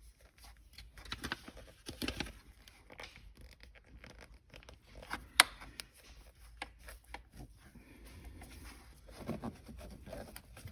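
Hands pressing and smoothing a foil-backed Dynamat sound-deadening sheet into place: faint, irregular crinkling and scraping, with one sharp click about five seconds in.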